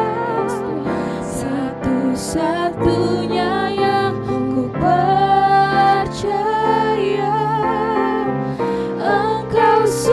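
Worship song: a singing voice holding long, wavering notes over sustained instrumental accompaniment.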